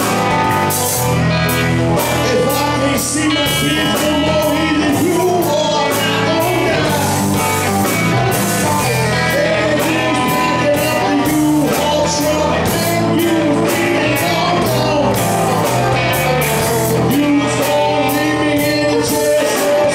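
Live rock band playing: a man singing over electric and acoustic guitars, with drums keeping a steady beat.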